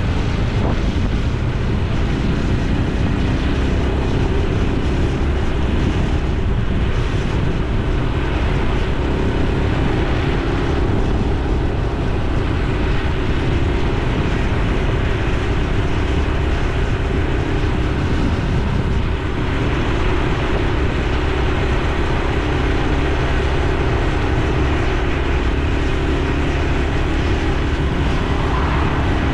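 Honda Super Cub C125's single-cylinder 125 cc four-stroke engine and exhaust running steadily under way, heard from the moving motorcycle.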